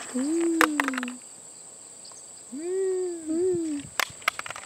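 A few sharp clicks of crushed aluminium cans and a litter grabber knocking together, over a steady high insect whine. Three low hoot-like calls rise and fall in pitch, one near the start and two back to back in the second half.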